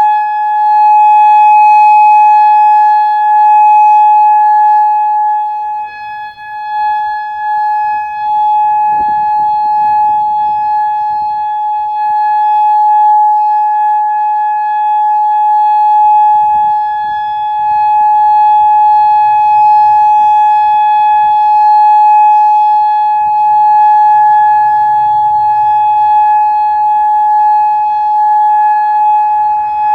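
Federal Signal Modulator 6048 outdoor warning siren sounding its steady Alert signal: one sustained tone that holds its pitch while the loudness swells and dips.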